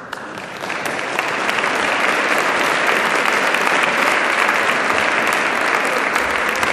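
Audience applauding, building up over the first second and then steady.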